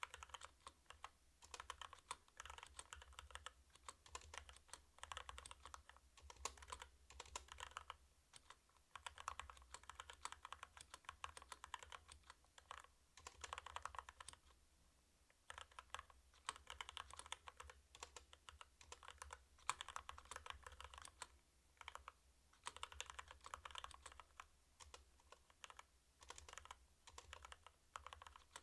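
Typing on a 65% mechanical keyboard with Kailh Box Red linear switches: fast runs of keystroke clacks broken by short pauses every few seconds.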